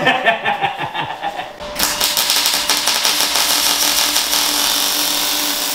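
Welding arc crackling steadily as a bead is laid on a car's steel roof panel. It starts about a second and a half in, after brief talk.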